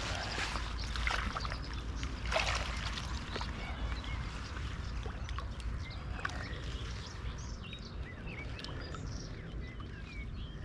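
Water splashing and sloshing in shallow lake water as a carp is handled out of a floating retention sling and released, busiest in the first few seconds. Small birds chirp and sing from about halfway through.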